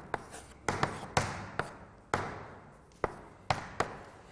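Chalk writing on a blackboard: about nine sharp taps at uneven intervals, several followed by a short scratch of the stroke.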